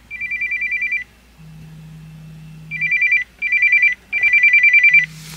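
Smartphone alarm going off: four bursts of rapid high beeping, about eight beeps a second, with a low buzz in the gaps between bursts.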